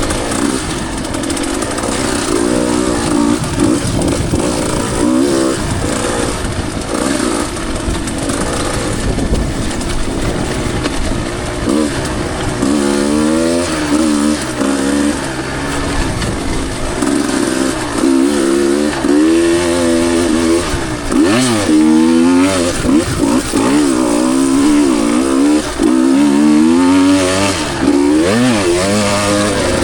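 Two-stroke dirt bike engine being ridden hard on a trail, revving up and dropping back again and again, its pitch rising and falling every second or two.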